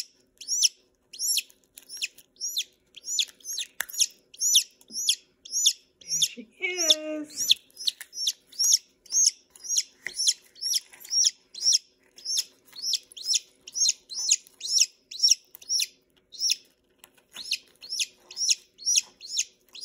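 A newly hatching chick peeping loudly and steadily, about three short falling peeps a second. About seven seconds in, a brief lower-pitched sound joins in for about a second.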